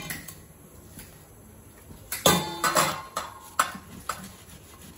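A stainless steel bowl set down on a counter, then a metal box grater clanking against the inside of the steel bowl as a boiled potato is rubbed down it: a loud clank, then sharp knocks about two a second.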